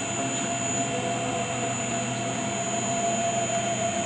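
SH-3636 CNC engraving machine running, a steady high-pitched whine with a lower steady tone over a hum.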